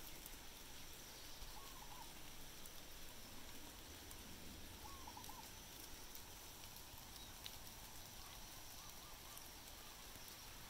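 Faint animal calls over a steady background hiss: three short groups of two or three quick notes, spaced a few seconds apart.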